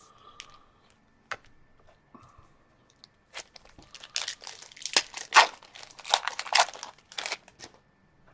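A hockey trading-card pack wrapper handled with a few light clicks, then torn open and crinkled in a run of rasping rips over the second half.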